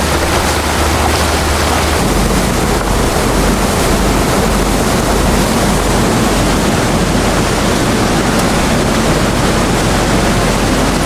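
Motorboat running at speed: a steady rush of water and wake spray with wind on the microphone, over a low engine drone that grows stronger about two seconds in.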